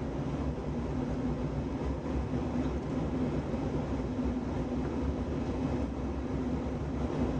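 Steady cabin noise inside an Airbus A319 climbing after takeoff: the jet engines' drone and rushing airflow heard from a window seat over the wing, with a low steady hum.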